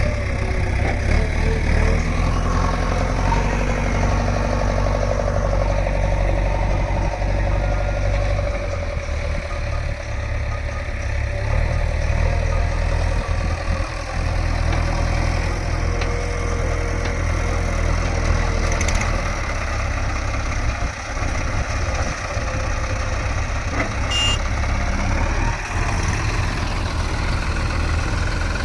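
Heavy diesel engine running steadily with a deep low note, its level shifting a little as the machinery works.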